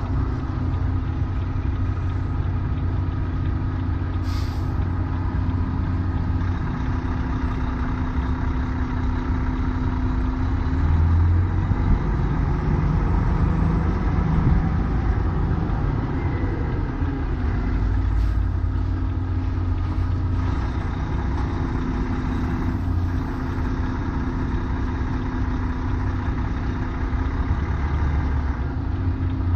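Semi-truck diesel engine running at low revs while the rig reverses slowly, the engine note rising and getting louder for a few seconds about a third of the way through before settling back to a steady hum.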